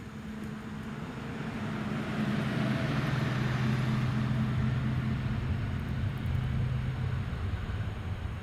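Boeing 777-300 jet engines passing close by, the noise swelling to a peak a few seconds in and staying loud, with a steady low hum whose pitch drops near the end as the airliner goes past.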